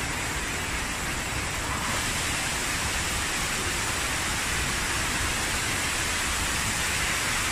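Water pouring steadily from an overhead water-curtain fountain and splashing into a pool, an even rushing hiss.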